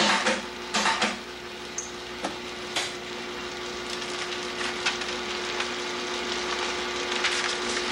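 Knocks and clacks from the hinged glass platen of an animation camera stand being raised and lowered, with paper being shuffled under it; the loudest knocks come at the start and about a second in. A steady hum runs underneath.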